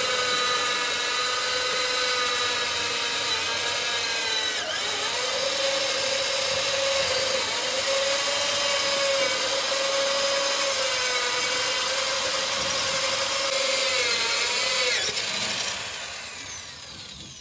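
An electric power tool's motor running at a steady whine, dipping in pitch for a moment about four and a half seconds in as it takes load. Near the end it is switched off and spins down, falling in pitch as it fades.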